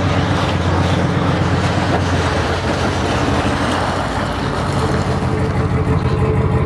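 Engine running steadily with a low pulsing hum, over a rushing noise, as a jet ski on a wheeled dolly is towed behind a pickup truck.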